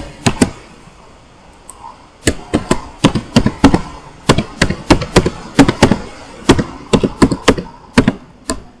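Typing on a computer keyboard: a string of sharp key clacks at an uneven pace, two near the start, then a pause of about a second and a half, then a steady run of keystrokes until near the end.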